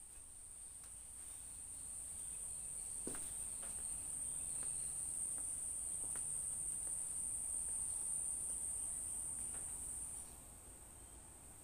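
Insects in the garden making a continuous high-pitched trill, growing louder over the first few seconds and dropping sharply about ten seconds in.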